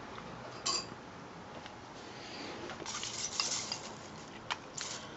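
Kitchenware being handled: faint clinks and knocks, with a short rustle about three seconds in.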